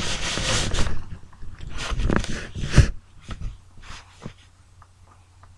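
A person's heavy breathy exhales close to the microphone, two loud bursts in the first three seconds, followed by a few faint ticks and rustles.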